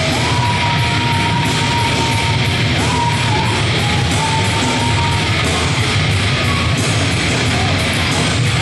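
Heavy metal music playing loud, with a long held high note through the first half that bends about three seconds in.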